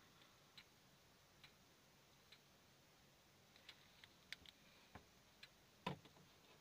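Near silence with faint, irregularly spaced small ticks, a few coming close together about four seconds in, and a single soft knock near the end.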